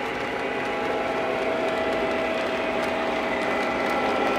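Lionel O-gauge model trains running on three-rail track: a steady electric motor whine with light ticking from the wheels and gears.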